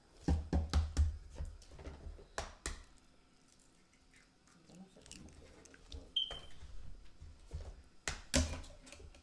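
Kitchen handling sounds: a quick run of sharp knocks and clicks in the first second, two more taps about two and a half seconds in, a brief high chirp near six seconds, and a louder clatter about eight seconds in.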